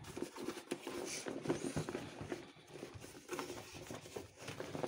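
Fabric cover of a snow tube being handled as the deflated rubber inner tube is spread out inside it by hand: irregular rustling and rubbing of cloth with many small soft knocks.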